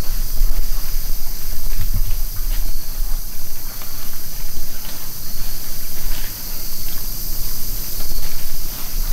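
Wind buffeting the microphone in uneven gusts, over a steady high hiss, with a few faint scattered clicks.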